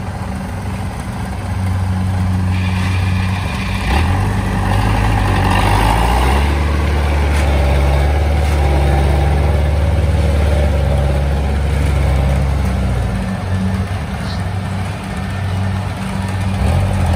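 Engine of a small tracked rice-hauling carrier loaded with sacks of paddy, running steadily and growing louder a few seconds in as it drives off across the muddy field with its load.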